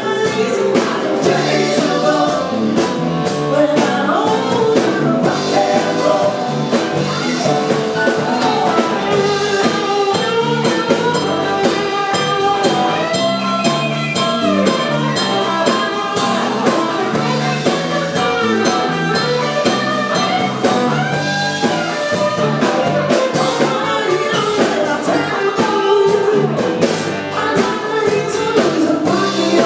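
Live band playing a song with a lead singer, over a steady drum beat.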